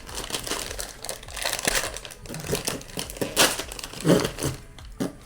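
Plastic candy wrapper crinkling in the hands as the package is handled and opened, in irregular crackles with a louder one about three and a half seconds in.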